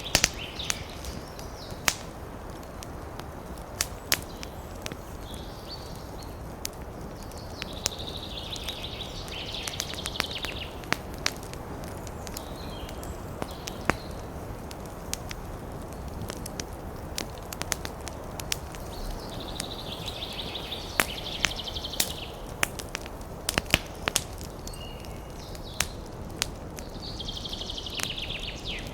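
Wood fire in a fireplace crackling, with frequent sharp irregular pops over a steady low rush of the flames. A high rasping hiss rises and fades three times, likely moisture or sap hissing out of a burning log.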